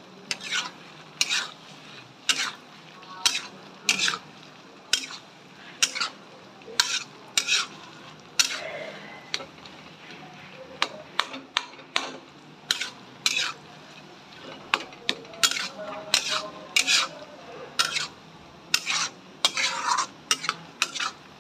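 Flat metal spatula stirring and scraping a thick elephant foot yam curry in a metal kadai, in short strokes roughly one to two a second in an uneven rhythm, over a faint sizzle of the oily masala.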